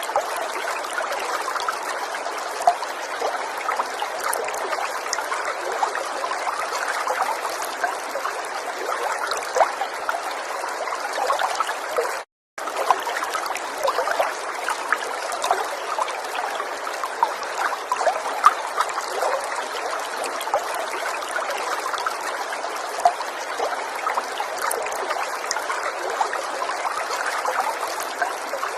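River water flowing steadily, with many small splashes and trickles. The sound cuts out to silence for a moment about twelve seconds in.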